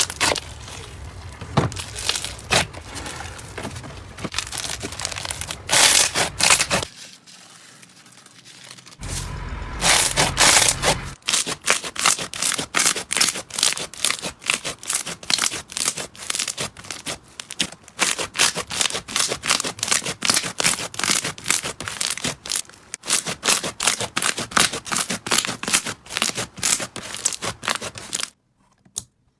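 Slime being squeezed and worked by hand, crackling and crinkling at first. After a short lull it gives a long, quick run of sharp clicking pops that thins out near the end.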